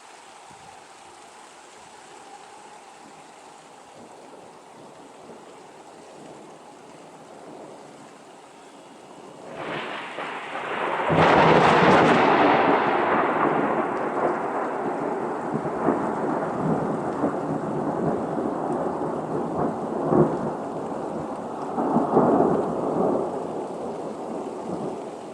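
Steady rain, then about ten seconds in a nearby lightning strike: thunder builds and breaks into a loud thunderclap, rumbling on with a few lesser cracks before slowly fading.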